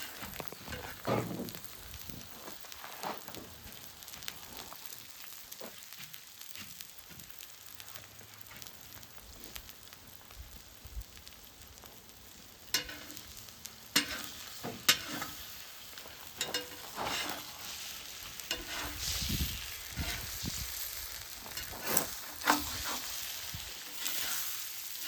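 Eggs sizzling as they fry in a pan, a steady hiss. From about halfway through, a cooking utensil scrapes and clicks against the pan as the eggs are stirred and turned.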